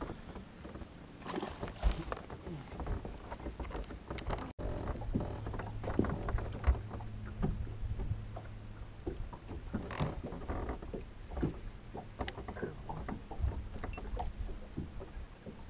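Sounds aboard a fiberglass bass boat: scattered knocks and clicks of handling on the deck and hull. After about four and a half seconds a steady low hum sets in and runs on under the knocks.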